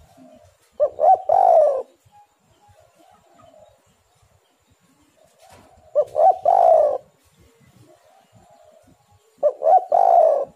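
Spotted dove (tekukur) cooing: three calls about four seconds apart, each a couple of short notes followed by a longer, slightly falling coo.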